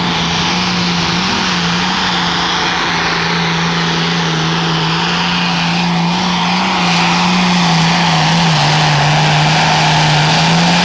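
Super stock pulling tractor's turbocharged diesel engine running flat out under load as it pulls the sled. It holds a steady high engine note with a hiss above it, growing louder about seven seconds in.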